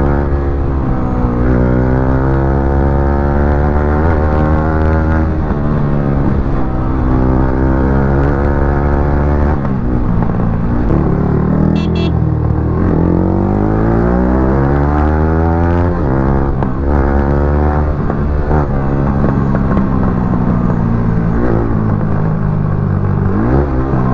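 Yamaha R15 V3's single-cylinder engine breathing through an aftermarket exhaust, ridden hard. The pitch climbs and drops again and again as the bike accelerates and changes gear, with one long rising pull in the middle.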